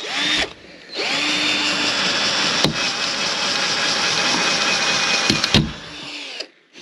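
Cordless drill driving a thin bit into OSB board: a short burst, then about a second in the motor spins up to a steady whine that runs for about four and a half seconds, with one sharp click partway, before it stops and trails off near the end.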